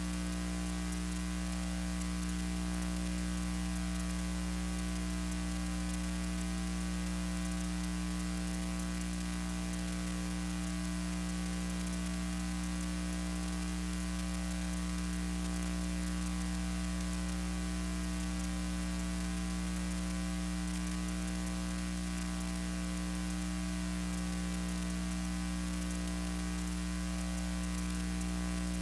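Steady electrical mains hum with a layer of static hiss, unchanging throughout: the background noise of a silent archival film transfer, with no recorded aircraft sound.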